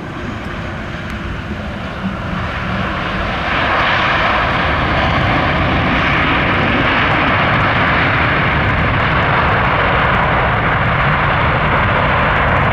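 Jet airliner engines, the noise stepping up twice in the first few seconds, about two and three and a half seconds in, then holding loud and steady.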